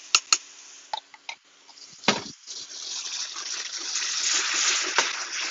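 Pieces of hen sizzling in coconut milk in a hot frying pan, with the sizzle growing louder over the last few seconds as the milk reduces and the chicken starts to caramelise. A couple of sharp clicks of the utensil against the pan come near the start, and a knock a little after two seconds.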